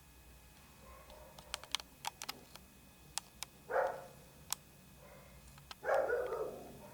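A dog barks twice, about four seconds in and again near the end; the second bark is longer. A scatter of sharp clicks comes before the first bark.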